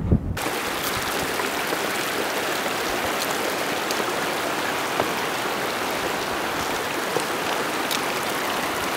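Shallow mountain creek running over rocks: a steady hiss of rushing water that starts abruptly about half a second in.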